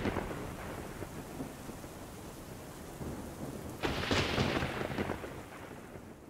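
Thunder with steady rain: the previous rumble dies away at the start, then a fresh crackling thunderclap breaks about four seconds in and rolls away.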